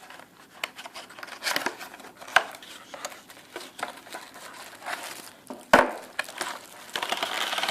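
Plastic packaging bag crinkling and rustling as it is handled, with scattered light clicks and one sharper knock about six seconds in.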